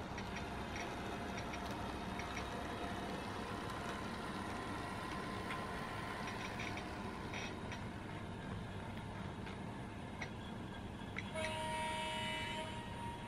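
Digitrax SDN136P sound decoder in an HO-scale model of a Mizushima Rinkai Railway KiHa 320 diesel railcar, playing a diesel engine sound through a small 16 mm speaker at a low volume, with scattered light clicks. Near the end it sounds a two-tone horn for about a second and a half.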